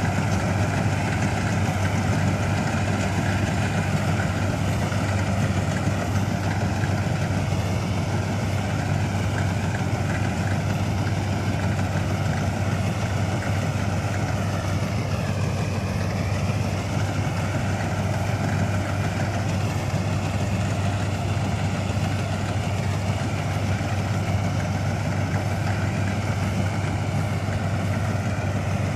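A 1965 Köla Combi Special combine harvester running steadily, its engine drone continuous throughout, with a brief dip and recovery in pitch about halfway through.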